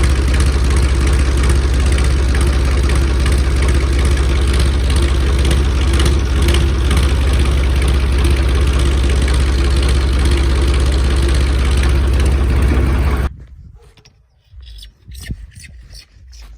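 Tractor diesel engine running steadily at idle, its exhaust passing through a silencer fitted with a turbo-sound whistle attachment. It cuts off abruptly about 13 seconds in, leaving faint quiet sounds.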